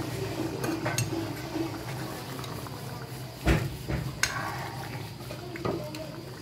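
Thick pea-and-paneer curry gravy bubbling in a metal kadai while a metal ladle stirs it, knocking and scraping against the pan several times. The loudest knock comes about three and a half seconds in.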